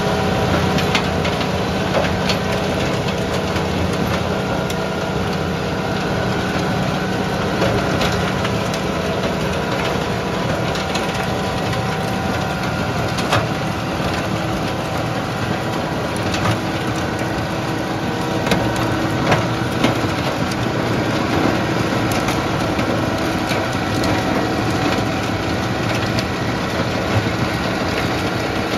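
Tractor-driven FAE STCL/DT stone crusher working: the engine and the PTO-driven crushing rotor run steadily, with frequent sharp cracks and knocks as stones are struck and broken.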